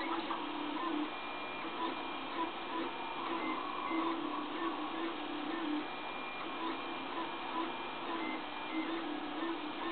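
3D printer's stepper motors whining as the axes move in short runs, the pitch jumping between a few steady tones with each move, over a steady fan-like hiss.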